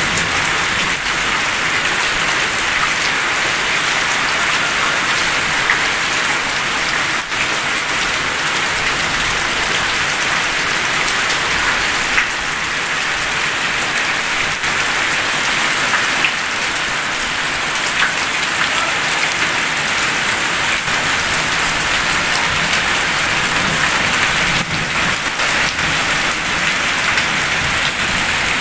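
Heavy rain falling steadily on a tiled roof and a paved yard, an even, unbroken hiss.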